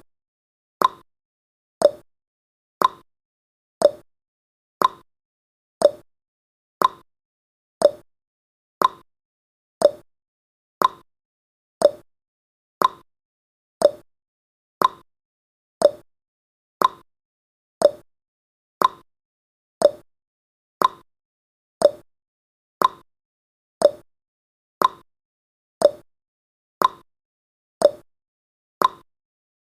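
Countdown timer's clock-tick sound effect: a short, sharp tick repeating steadily about once a second.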